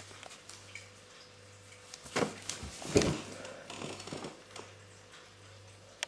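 Handling noise from a hand-held phone being moved: a cluster of rustles, scrapes and knocks about two seconds in, over a steady low hum.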